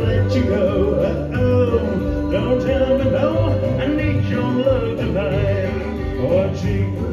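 Live band playing a country-style song, with a male lead singer and female backing vocals.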